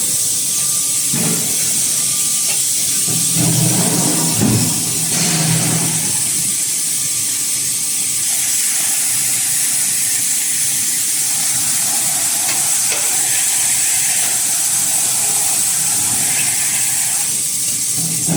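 Steady, loud, high hiss of compressed air in a hot die-forging line, as from the automatic die lubrication spray. A low machine hum comes and goes in the first five seconds and returns near the end.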